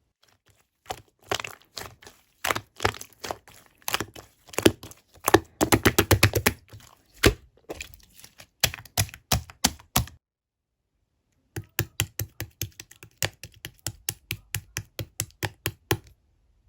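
Slime being squeezed and pressed by hand, giving crisp crackling and popping clicks as trapped air pops. A dense irregular run of pops breaks off about ten seconds in, then after a short pause comes a quicker, more even series of clicks.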